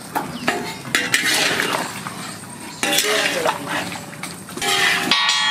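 Flat metal spatula scraping and clinking against a metal wok as chilli chicken and sliced onion are stirred together, in irregular strokes. About five seconds in, a steady hum of several tones begins.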